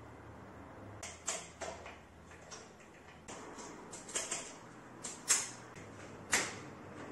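Scattered light clicks and knocks of cable housing and hands working against a mountain-bike frame in a work stand, about ten in all, the two loudest knocks near the end.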